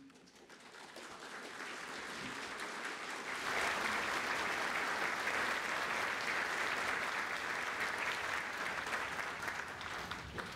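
Audience applauding, swelling over the first few seconds and then holding steady, easing slightly near the end.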